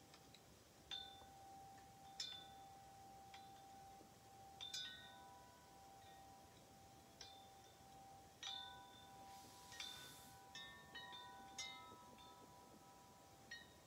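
Metal tube wind chimes stirred by the breeze: faint, scattered strikes at irregular intervals, each leaving a long ringing tone that overlaps the next.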